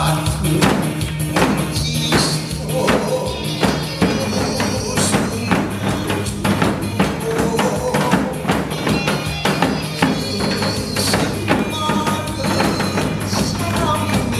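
Backing music with janggu (Korean hourglass drum) strokes played along in a steady beat.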